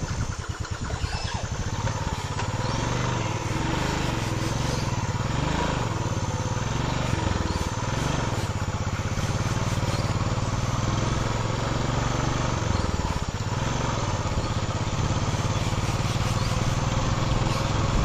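An engine running steadily, its pitch wavering up and down a little.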